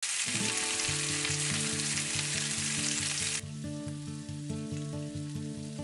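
Pork neck sizzling as it fries on a grill pan. The sizzle is loud for about three and a half seconds, then drops to a quieter sizzle. Background music with a steady repeating rhythm plays underneath.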